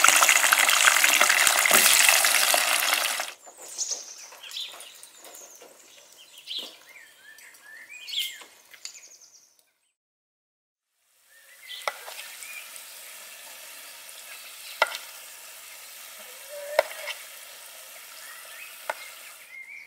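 Potato wedges deep-frying in hot oil in a saucepan, with a loud, dense sizzle that drops off suddenly about three seconds in. After a short silence, a softer steady sizzle returns, broken by several sharp clicks of a metal fork against the pan as the fried potatoes are stirred.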